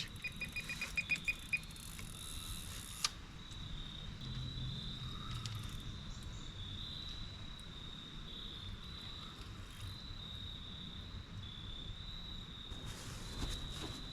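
Electronic carp bite alarm sounding a fast string of beeps for about the first second and a half, the signal of a fish running off with the line. Under it and afterwards, a steady high chirring of crickets.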